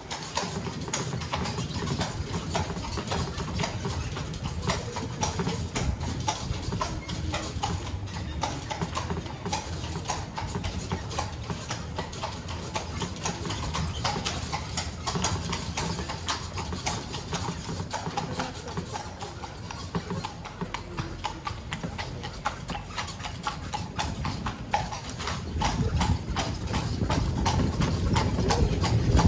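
Carriage horses' hooves clip-clopping steadily on cobblestones as they pull a carriage at a walk, growing a little louder near the end.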